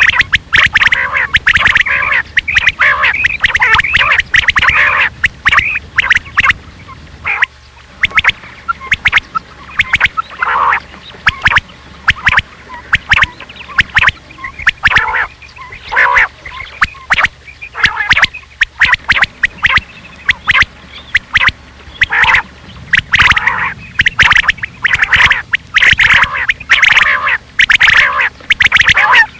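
Rain quail calling: a rapid run of short, harsh, repeated call notes, dense for the first several seconds, thinning to scattered calls through the middle and dense again near the end. This is a quail lure recording of the kind played to draw the birds in for hunting.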